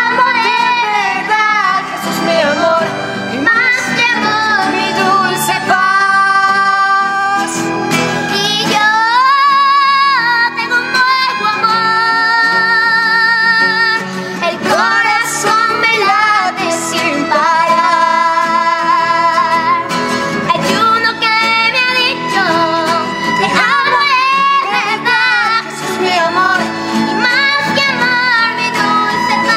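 A boy singing a slow ballad in a high voice, holding long notes with vibrato, over strummed acoustic guitars.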